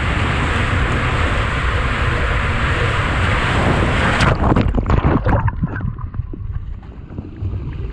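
Water and the rider's body rushing steadily through an enclosed tube waterslide. About four seconds in comes a burst of splashing as the rider plunges into the water at the end of the run. After that the sound is quieter and muffled.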